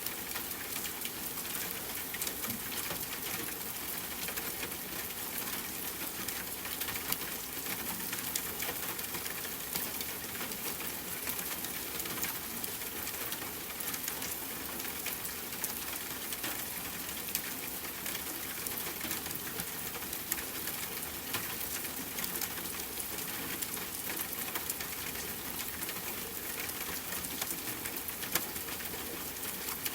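Steady rain falling on tent fabric mixed with a crackling campfire: a constant hiss laced with many small sharp pops and ticks.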